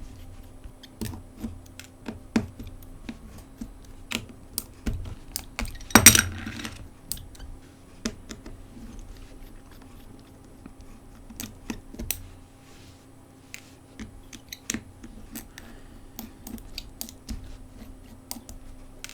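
Small clicks and taps of hand tools against the plastic parts of a smartphone being taken apart, irregular throughout, with one louder scrape about six seconds in.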